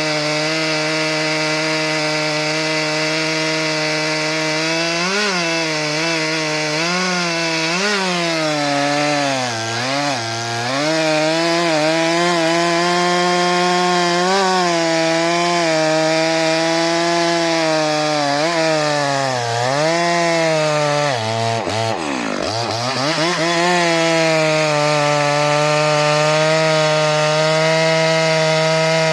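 Stihl MS 462 two-stroke chainsaw with a 90 cm bar running at high revs while cutting through a log. Its pitch sags again and again under load, and about three-quarters of the way through it drops steeply, nearly bogging down, before climbing back to full speed.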